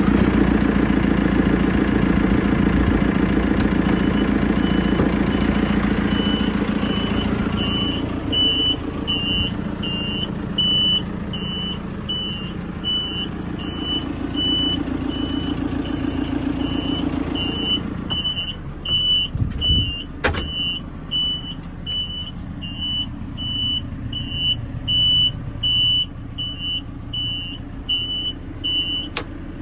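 JCB 3CX backhoe loader's four-cylinder diesel engine running, with its reversing alarm sounding a regular high beep as the machine backs up. The engine eases down about two-thirds of the way through while the beeping carries on.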